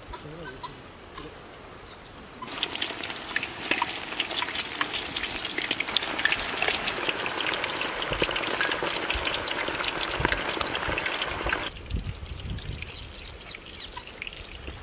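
Chicken pakoras deep-frying in hot oil: a dense crackling sizzle that starts suddenly a couple of seconds in and cuts off suddenly near the end, with only faint ticks before and after.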